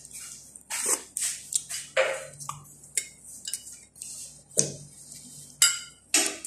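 Metal teaspoon stirring tea in a glass mug, knocking against the glass in a string of sharp, irregular clinks, about a dozen.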